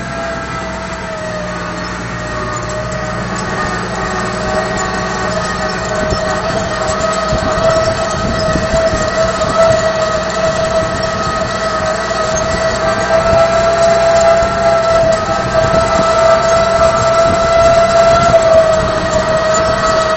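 Case IH 1056 XL tractor's six-cylinder diesel running under steady load while it pulls a tine harrow, with a strong, steady high whine over the engine. The whine dips slightly in pitch at first, then holds, and the sound grows gradually louder.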